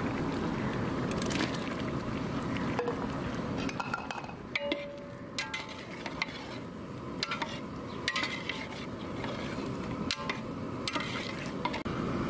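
A steel ladle stirring bottle gourd chunks into a large aluminium pot of thick mutton curry, clinking sharply against the pot's side many times over a steady hiss.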